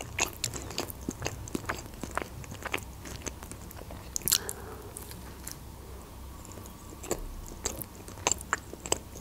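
Close-miked chewing of a bite of bread with red fish: soft wet clicks and small crunches throughout, with one louder mouth sound about four seconds in.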